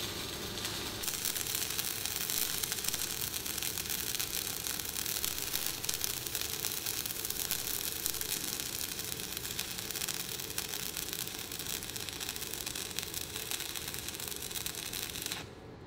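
Stick (MMA) welding arc burning steadily on a steel plate, a continuous crackle and sizzle from a covered electrode, breaking off abruptly near the end as the arc is stopped.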